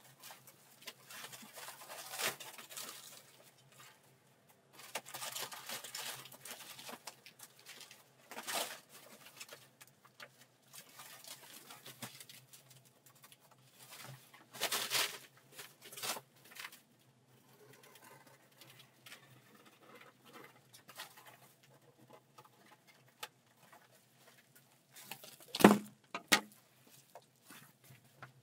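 Rustling and handling noises from hands working with materials, coming in irregular bursts, with two sharp knocks close together near the end.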